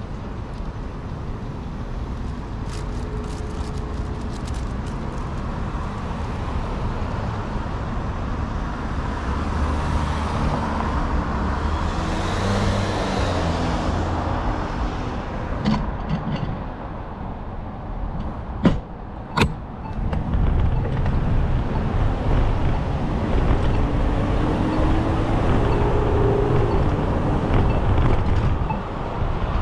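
City street traffic: cars passing with a steady low rumble and a faint engine hum now and then. Two sharp clicks come a little past halfway.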